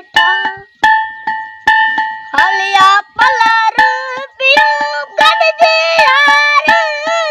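Background song: a high singing voice sliding between notes over a held drone tone and a steady beat of strokes about every 0.7 seconds.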